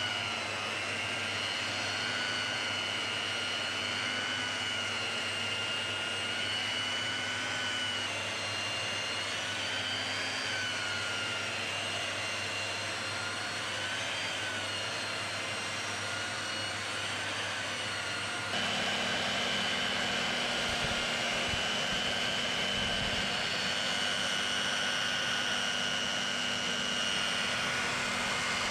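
Peugeot power brush with a brass wire brush running along an oak rafter, giving it a brushed finish: a steady motor whine that wavers slightly in pitch as the brush bears on the wood. The sound changes abruptly twice and is a little louder in the last third.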